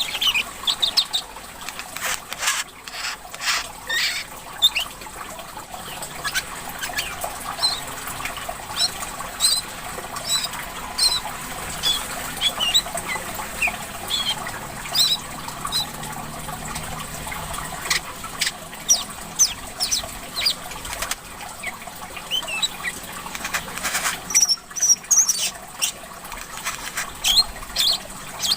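Brown-throated sunbird (kolibri kelapa) giving rapid, high, short chirps and sharp chips in quick irregular runs, over steady trickling water.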